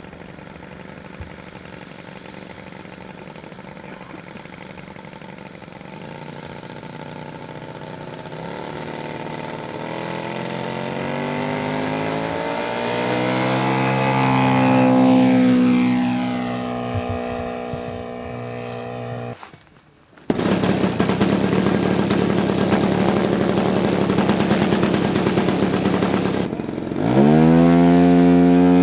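A scale-model Harvard warbird's engine running for its takeoff roll, growing louder and dropping in pitch as it passes close by about halfway through. After a sudden break, a model aircraft engine runs steadily at close range, then revs up sharply near the end and holds at the higher pitch.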